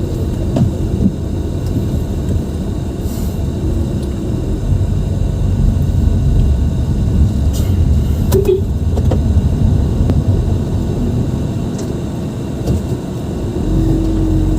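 Car on the move: a steady low rumble of road and engine noise, with a brief tone about halfway through and a steadier hum coming in near the end.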